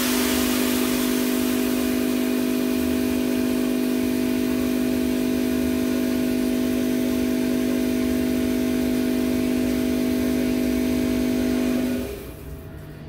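Automatic coffee-bean weighing and filling machine dosing roasted beans: a steady motor hum with a hiss of pouring beans. It starts abruptly and cuts off about twelve seconds in, as the fill nears its one-kilogram target.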